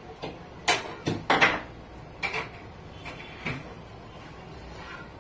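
Short knocks and clinks of steel bowls and dishes being handled at a kitchen counter, about half a dozen scattered through the first four seconds.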